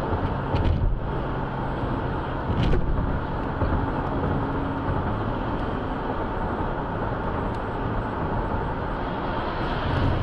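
Steady rumble of road and engine noise inside a car's cabin at highway speed, with two short clicks in the first three seconds.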